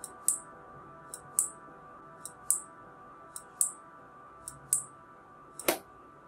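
Small 5 V relays on a 555-timer turn-indicator flasher board clicking on and off in a steady rhythm, a pair of clicks a quarter second apart about once a second. Near the end a louder click as the direction switch is flipped, and the flashing clicks stop; faint background music underneath.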